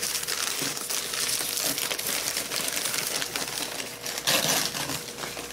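Newspaper packing being crumpled and rustled by hand as it is pulled out of a shipping box, with a louder crinkle a little over four seconds in.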